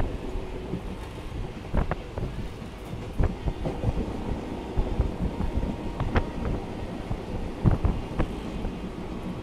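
Passenger train running at speed, heard from inside a carriage at an open window: a steady low rumble with several sharp clacks of the wheels over rail joints at uneven intervals.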